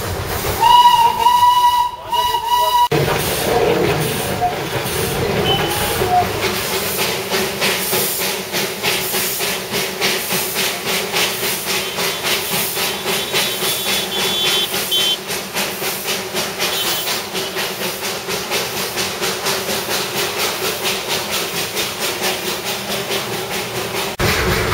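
A Darjeeling Himalayan Railway narrow-gauge steam locomotive's whistle gives one shrill blast lasting about two seconds. The locomotive then works along with a steady, rhythmic chuffing of exhaust steam over a constant hiss.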